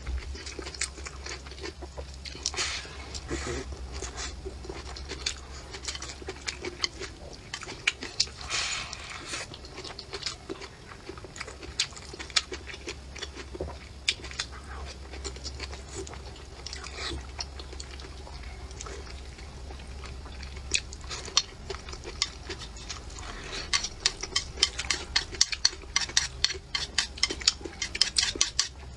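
Close-miked eating: chewing with many short sharp clicks of utensils against dishes, the clicks coming thicker near the end. A low steady hum underneath stops about two-thirds of the way through.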